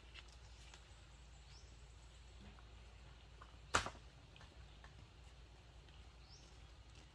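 Faint outdoor background with scattered soft clicks and a couple of short rising bird chirps, broken by one sharp click a little past halfway.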